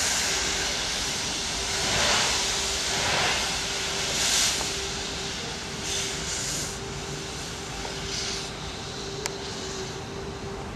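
Narrow-gauge steam tank locomotive moving slowly, steam hissing from around its cylinders with a few slow, uneven exhaust surges that grow weaker after the first half. A steady low hum runs underneath, and there is one sharp click near the end.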